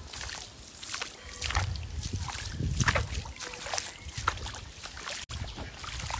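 Wind buffeting the phone's microphone in an uneven low rumble, loudest about halfway through, with scattered short sharp clicks and chirps over it.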